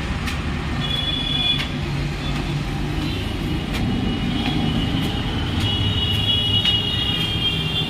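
Steady rumble of street traffic with vehicles running by, and thin high-pitched squeals about a second in and again through the last couple of seconds.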